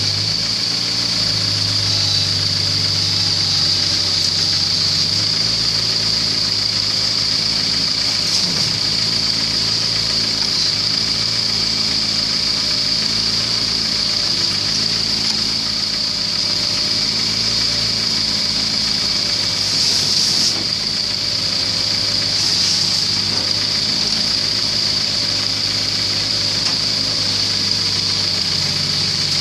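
Case mini excavator's engine running steadily, with a constant high whine over it, while the machine is worked into position on a flatbed truck. The engine note shifts about five seconds in.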